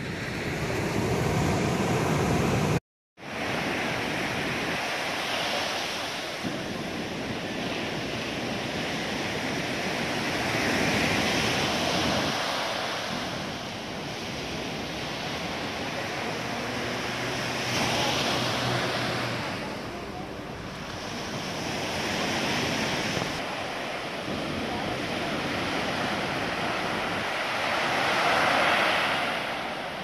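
Sea surf breaking on a sandy beach, the wash swelling and falling back every few seconds. The sound drops out completely for a moment about three seconds in.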